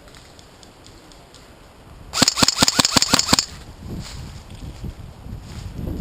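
Airsoft electric gun (AEG) firing one short burst of about nine rapid shots, lasting a little over a second, about two seconds in.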